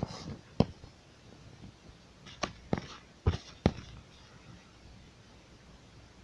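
Six sharp clicks and taps in the first four seconds, then none.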